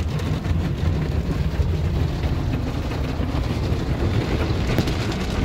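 Automatic car wash heard from inside a truck cab: cloth brushes and water spray washing over the windshield and body, over a steady low rumble. The truck's engine is off, so no engine is heard.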